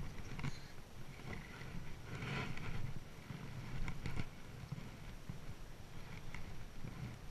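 Clothing rustling and handling knocks against a chest-mounted action camera as an angler moves to grab a landed bass, over a low rumble on the microphone. A louder rustle about two seconds in.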